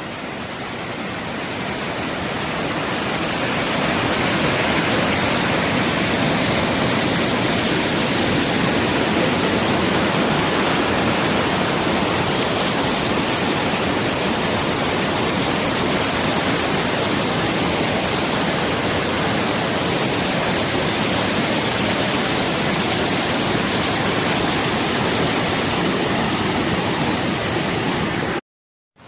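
Waterfall and rocky mountain stream rushing, a steady sound of falling white water. It grows louder over the first few seconds and cuts off abruptly just before the end.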